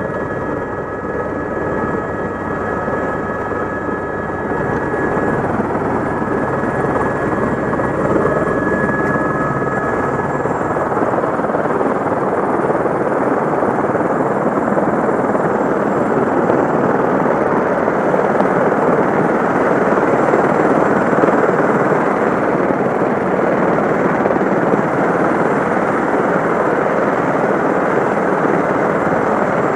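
Helicopter turbine and rotors running on the ground. At first there is a steady whine with thin tones over it; after about ten seconds these give way to a louder, even rushing noise.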